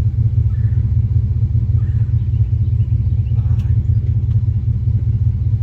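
Steady low rumble, even and unbroken, with faint light ticks above it.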